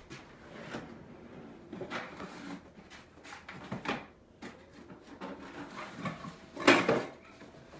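Rummaging in a wooden kitchen drawer: scattered light knocks and rustles, then a louder clatter about three-quarters of the way through.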